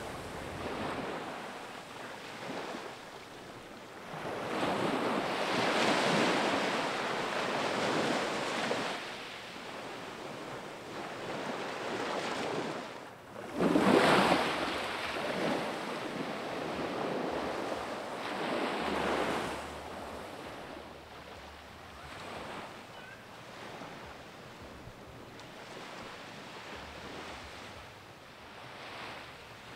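Small waves breaking and washing up on a sandy beach, the surf swelling and fading every few seconds. It cuts out briefly about thirteen seconds in and comes back at once, and is softer and steadier in the last third.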